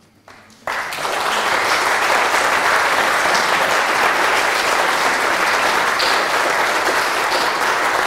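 Audience applauding at the end of a lecture. It starts suddenly under a second in and holds steady.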